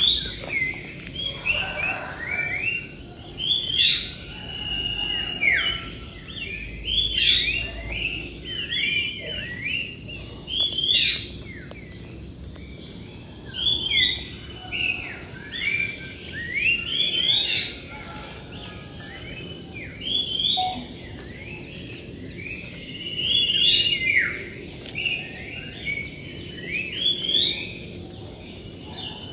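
Wild birds singing: a short phrase of quick rising and falling whistles repeats about every three to four seconds. Insects keep up a steady high buzz underneath.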